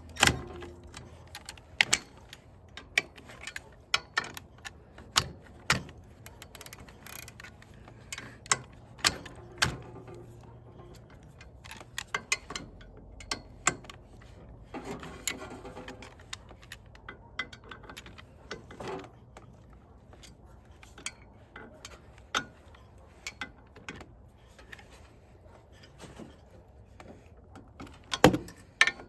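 Hand tools clicking and clanking on metal while the clutch is worked on, in scattered sharp knocks with a short stretch of rapid rattling about halfway through and a louder knock near the end.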